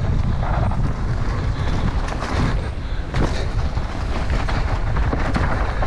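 Downhill mountain bike running fast over a dusty dirt trail: a steady roar of tyres and wind buffeting the microphone, with the bike rattling and a few sharp knocks over bumps.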